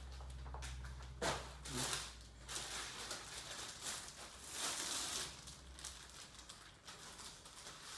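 Handling noises as a cricket bat is taken out and looked over: rustling of packaging with a couple of light knocks in the first two seconds, and a low hum underneath at first.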